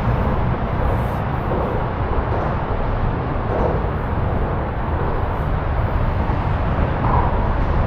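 Steady rumble of road traffic crossing the highway bridge overhead, heard from underneath the deck.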